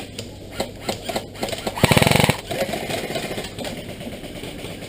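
Airsoft electric rifle firing a short full-auto burst of rapid, evenly spaced shots, about half a second long, about two seconds in.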